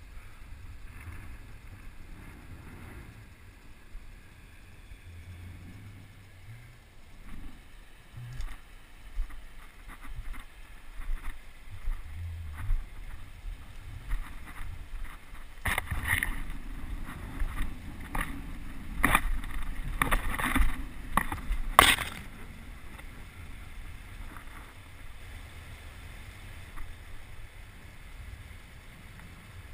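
Low rumble of wind and handling noise on the camera's microphone while walking through streamside brush, with a run of sharp clicks and cracks starting about halfway through and lasting some six seconds.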